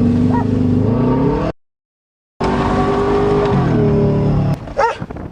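Subaru Legacy's boxer engine accelerating, its pitch rising, until the sound cuts out completely for just under a second. It comes back running steady at higher revs, drops in pitch about three and a half seconds in and fades away, and a dog barks near the end.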